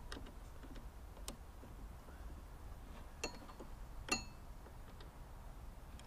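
A few small clicks and metallic clinks from hands working the throttle cable and linkage on a Flymo L47 two-stroke mower engine. Two sharper clinks ring briefly about three and four seconds in; the second is the loudest.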